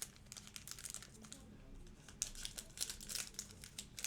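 Wrapper of a trading-card pack crinkling and tearing as it is ripped open by hand, in irregular crackles that grow busier about halfway through.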